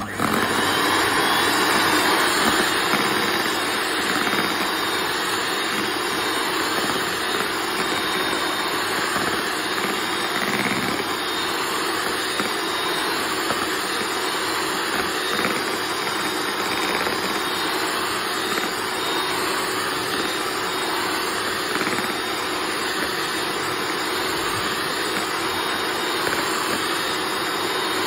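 Kenwood electric hand mixer running steadily, its wire beaters whipping a thick cream mixture in a plastic bowl, with a steady motor whine.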